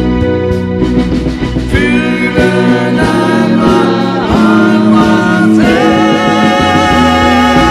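A live pop band plays a slow ballad while a male lead singer sings over it. The voice holds long notes with a wavering vibrato, most clearly from about two seconds in.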